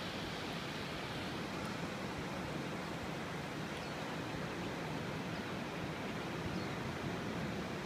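Steady, even rushing noise of ocean surf at a rocky shore, with no distinct events.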